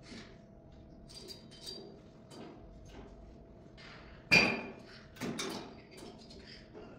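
Metal clanks and knocks from a gym leg extension machine as it is worked, the loudest a sharp clank about four seconds in and a few more just after, over a faint steady hum.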